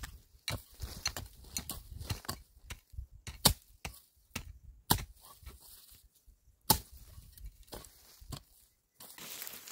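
Hand hoe chopping into the soil in irregular strikes, several sharp hits a second or so apart. The loudest come about three and a half seconds in and just under seven seconds in.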